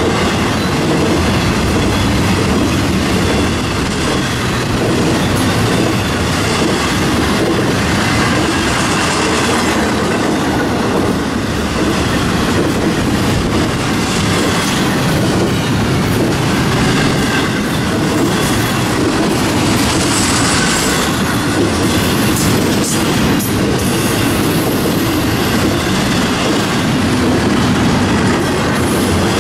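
Florida East Coast Railway intermodal freight cars, double-stack container well cars and trailer flatcars, rolling past close by: a steady, loud rumble of steel wheels on the rails. Faint high wheel squeal comes through at times.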